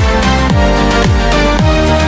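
Electronic dance music with a steady beat of deep, falling bass-drum hits.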